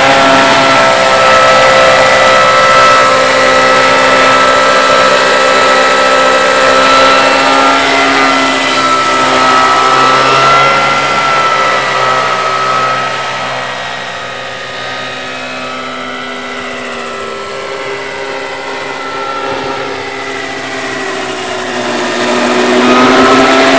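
Large radio-controlled scale OH-6 Little Bird helicopter flying, a steady whine of several tones from its drive and rotors. It grows quieter for several seconds past the middle, with the pitch sliding down as it moves away, then loud again near the end as it passes close.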